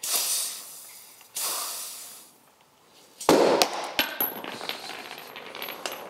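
Compressed air from a blow gun hissing in two short blasts into a disc brake caliper's fluid inlet, then about three seconds in the caliper piston blows out of its bore with a sudden loud bang. A few sharp knocks follow as the piston lands, with air still hissing through the empty bore.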